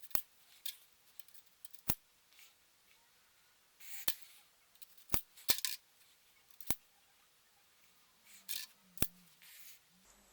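Plastic Connect 4 discs dropped into the upright grid, each landing with a sharp plastic click; about seven clicks come at irregular intervals, some with a brief rustle of handling.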